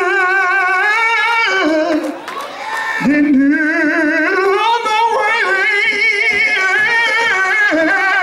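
A man singing long, drawn-out gospel notes into a microphone, with a strong vibrato. One held phrase breaks off about two seconds in, and a second long phrase starts about a second later.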